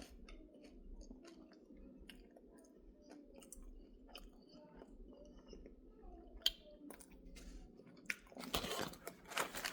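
Chewing a mouthful of crunchy kettle chips, many small sharp crackling crunches, with a louder, denser stretch of crunching about a second before the end.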